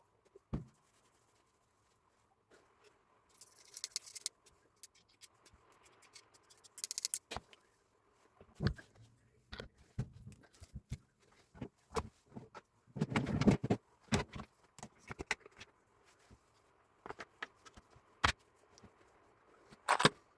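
Metal parts and hand tools clinking and knocking in scattered sharp clicks. There are two short hisses in the first third and a louder run of clatter about two-thirds of the way through.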